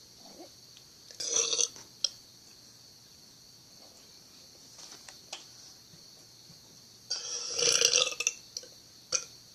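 A person burping twice: a short burp about a second in and a longer one of about a second later on, each followed by a brief click.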